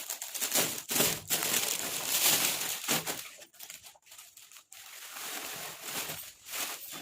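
Plastic packaging crinkling and rustling as a parcel is unwrapped. It is loudest in the first three seconds, then turns to quieter, scattered handling noise.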